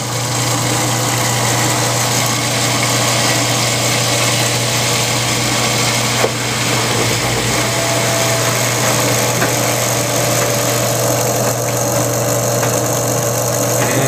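Front-load washing machine's drain pump running, a steady hum with a noisy rush as it pumps the water out on the final spin. It is a spare pump retrofitted as a temporary replacement, not fully screwed down. There is a single click about six seconds in.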